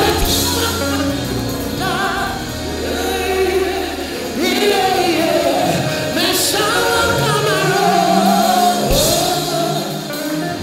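Live gospel music: a man singing lead into a microphone with choir-style backing voices over a band with a steady bass line.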